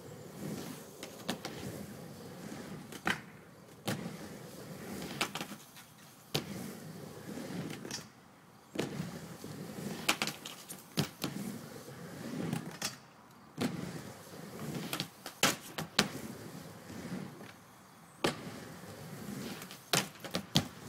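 Skateboard wheels rolling back and forth on a mini ramp, the rumble swelling and fading with each pass, broken by a dozen or so sharp clacks as the board strikes the coping at the lip.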